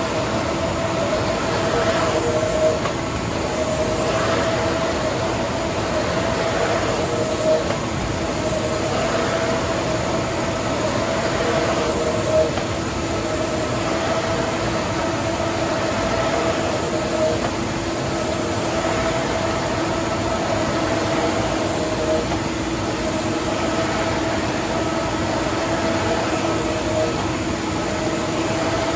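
EFI VUTEK 8-colour hybrid inkjet printer running, its print-head carriage moving back and forth across the media with a steady whine and hum. A short knock and a break in the whine come about every five seconds.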